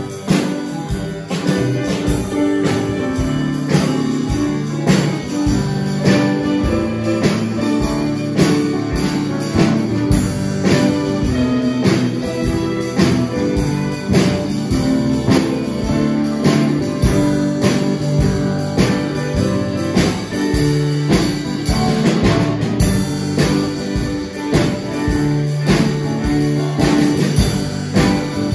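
Small live ensemble playing a song, with a bowed violin and an electric guitar over a steady beat.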